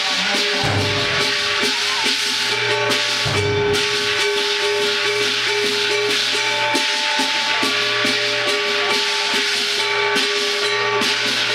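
Ritual music during a temple incense offering: steady held reedy tones over a dense, continuous shimmering rattle of percussion.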